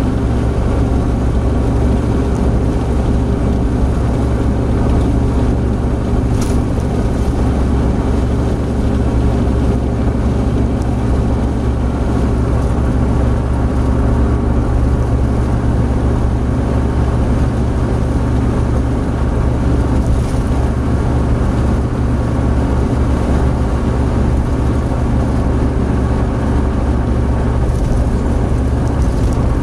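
Opel Blazer SUV cruising at about 120 km/h, heard from inside the cabin: a steady engine drone mixed with road and wind noise.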